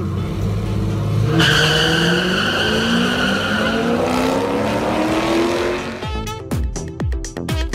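Car engine running hard in a drag race: a low rumble, then about a second and a half in it launches and the engine note climbs steadily in pitch for several seconds. Near the end music takes over, with quick beats and falling swoops.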